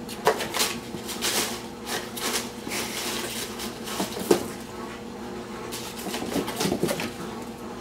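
Crumpled paper rustling and crackling in bursts as a kitten bounds through a cardboard box full of it, with a couple of sharp knocks on the cardboard.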